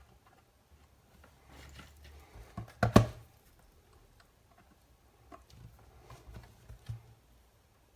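Small clicks and knocks of tools and parts being handled on a workbench during soldering work, with a sharp double knock about three seconds in and a few lighter clicks later.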